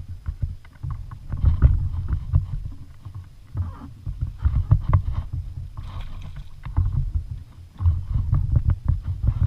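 Uneven low rumbling with scattered knocks and clatters on a fishing kayak.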